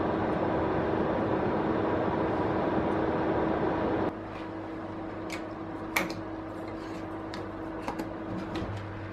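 AEG electric oven running with a steady whirring hum. About four seconds in this drops to a quieter hum, and several short sharp clicks follow as the oven's control knobs and buttons are worked.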